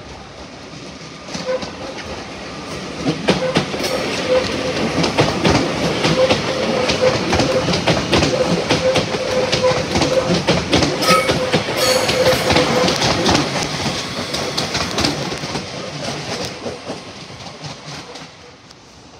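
A passenger multiple-unit train passing close by, its wheels clattering over rail joints and points, with a steady hum underneath. It builds over the first few seconds, is loudest in the middle, and fades away near the end.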